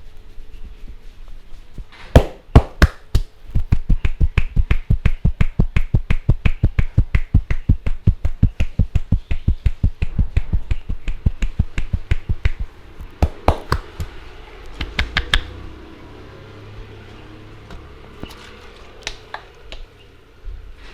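Indian head massage with hands striking the head in a fast, even rhythm, about four or five sharp slaps a second for around nine seconds, with a few louder single pops before and after.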